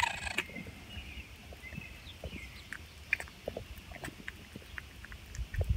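Baby raccoon pawing and sniffing at a mulberry held in a person's palm: faint scattered clicks and rustles.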